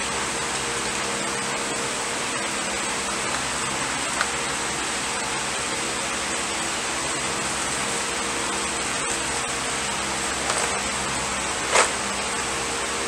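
Steady whirring hum and hiss of a running fan in a small room, with a couple of brief small knocks; the loudest knock comes near the end.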